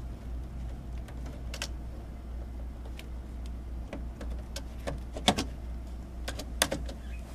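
Scattered plastic clicks and knocks of a 50-amp double-pole circuit breaker being hooked onto the bus of an electrical panel. Two knocks, about five seconds in and near the end, are louder than the rest.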